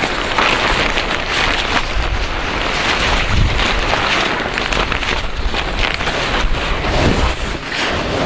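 Strong wind buffeting the microphone in gusts, with the fabric of a pop-up ice-fishing tent flapping and rustling as it is unfolded by hand.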